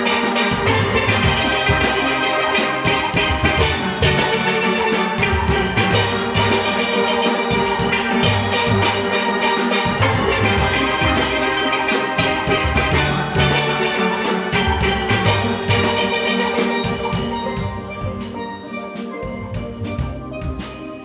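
Steel orchestra playing: many steelpans sounding rapid rolled and struck notes in full harmony over bass pans and drums. The music grows softer in the last few seconds.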